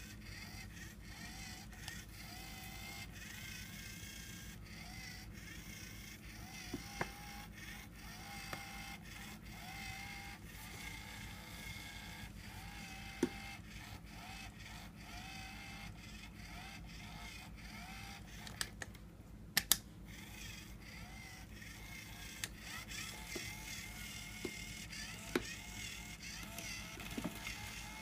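Faint background music over a low steady hum, broken by a few sharp clicks.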